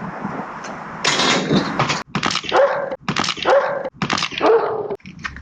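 A dog barking, about one bark a second, in short chunks that cut off abruptly between barks.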